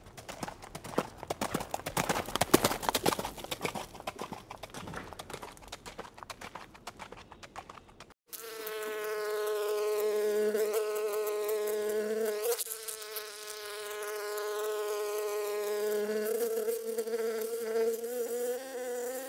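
Hoofbeats of a herd of horses, a dense run of irregular thuds. After about eight seconds they cut off and give way to bees buzzing, a steady, slightly wavering drone.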